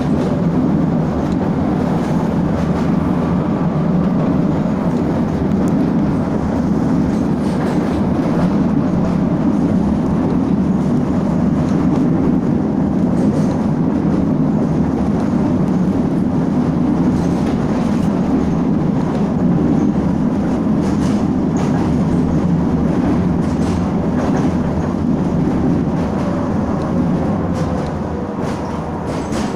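A steady low rumble of a moving vehicle with faint scattered clicks. It eases off a little near the end.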